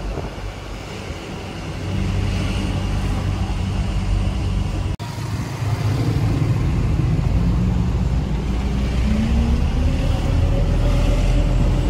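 Diesel engine of a Mitsubishi Canter elf minibus running as it drives along, heard from inside the cab together with road noise. The engine gets louder about two seconds in, the sound drops out for an instant about five seconds in, and the engine pitch rises near the end as the minibus speeds up.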